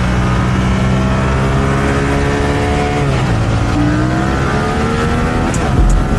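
Motorcycle engine pulling under acceleration, its pitch climbing steadily, dropping sharply about three seconds in at an upshift, then climbing again in the next gear.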